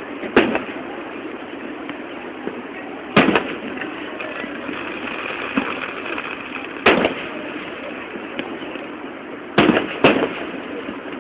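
Fireworks going off: five sharp bangs, the last two close together near the end, over steady background noise.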